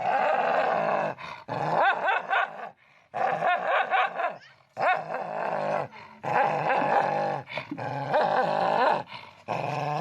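A dog "talking": a string of drawn-out vocal calls that waver up and down in pitch, with short pauses between them.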